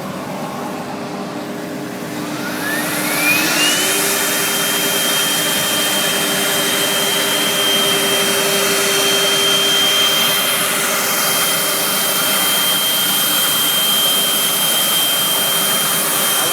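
CNC router spindle spinning up with a rising whine about two to four seconds in, then running at speed with a steady high-pitched whine over a loud, even rushing noise.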